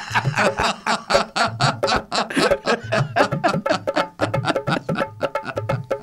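Cartoon background music: a fast run of short, sharp notes over a low beat that repeats about every second, cutting off suddenly at the end.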